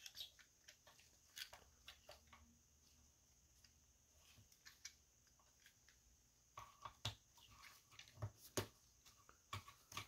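Soft, scattered plastic clicks and taps from the Transformers Studio Series 86 Ratchet action figure's limbs and joints being moved and posed by gloved hands. The clicks come sparsely at first and grow busier in the second half, with the loudest a little past the middle of that run.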